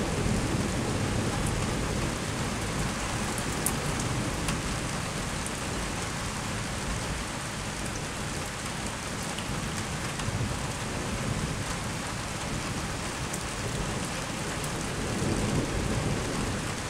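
Steady rain falling on roofs and surfaces, with a few sharp drop ticks, and a low rumble of thunder that swells near the start and again near the end.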